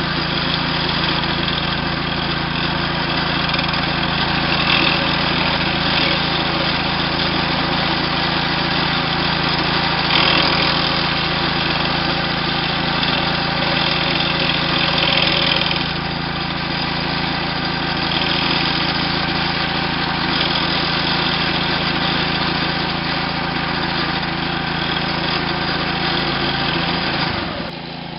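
Small gasoline engine of a walk-behind trencher running steadily as it cuts a slot through lawn and soil for burying dog-fence wire, with a gritty grinding that swells now and then. Near the end the engine note falls and the sound gets quieter.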